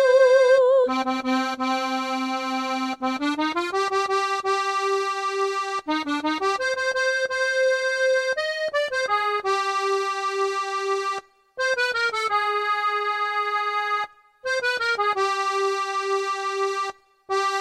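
Sampled accordion playing a slow instrumental melody of held notes, with three brief pauses between phrases. A synthesized singing voice's held, wavering note ends about a second in.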